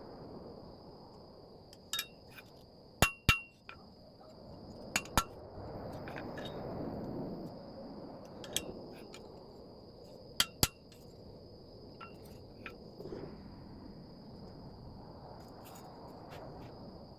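Hammer blows on steel: a handful of sharp, ringing strikes spaced over several seconds, mostly in quick pairs, with fainter clinks between.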